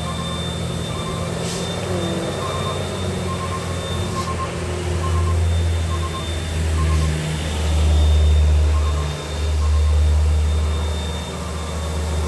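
Diesel engine of a Mitsubishi Fuso tanker truck running as the truck approaches. Its low drone grows louder from about five seconds in and dips briefly near nine seconds.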